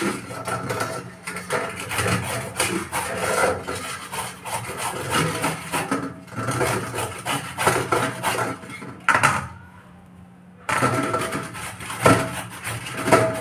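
Peeled bottle gourd being grated on a stainless-steel flat grater standing in a steel plate: repeated grating strokes, with a pause of about a second three-quarters of the way through before the grating resumes.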